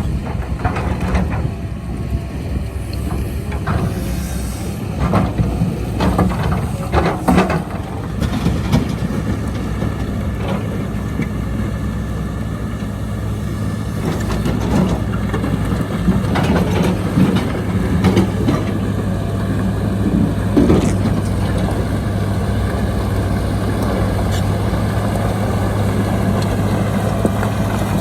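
Heavy diesel earthmoving machinery running steadily at work, with irregular knocks and scrapes of metal and rock over the engine, most frequent in the first third and again around the middle.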